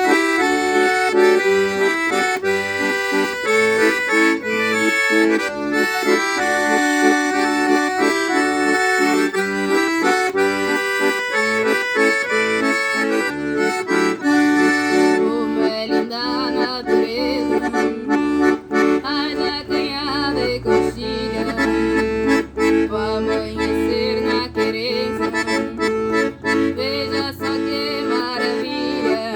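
Instrumental music, with held tones and a melody; its sound changes about halfway through, with a wavering melody over lower sustained notes.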